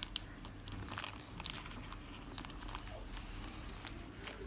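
Polythene sheet crinkling, with irregular sharp crackles, as transparent tape is pulled and pressed onto the plastic wrapping.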